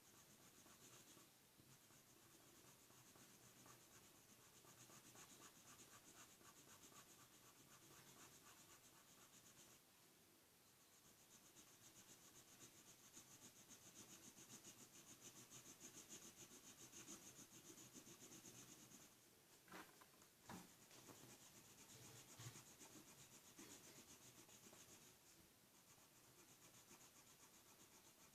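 Faint scratching of a felt-tip marker colouring on paper, in long stretches of quick strokes, with a couple of light knocks about twenty seconds in.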